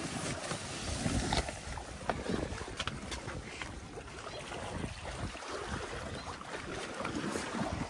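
Wind buffeting the microphone, an uneven low rumble, with a few light knocks and rustles in the first few seconds.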